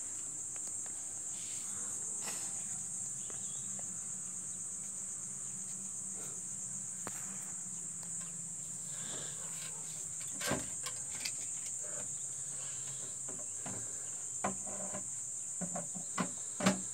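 A steady high-pitched trill of insects, with a few short sharp clicks or knocks, the loudest about ten seconds in and just before the end.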